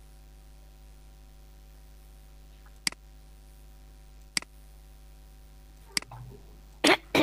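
Computer mouse clicks: three sharp single clicks about a second and a half apart, over a steady electrical hum. Near the end comes a louder, longer knock.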